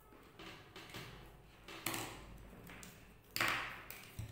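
Small objects being handled on a wooden workbench: a scatter of light taps and clicks from loose wires and tools, with a sharper knock about three and a half seconds in.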